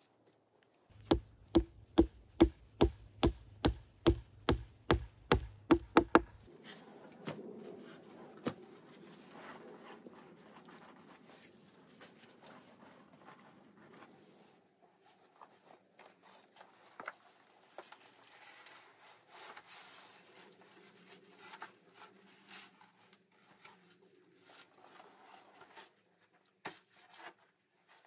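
A quick, even run of sharp knocks on wood, about three a second, for some five seconds, then quieter rubbing and scraping of wood with scattered knocks.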